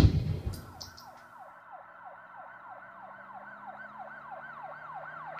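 A loud bang at the start, dying away over about a second, then a siren warbling quickly up and down, about three cycles a second.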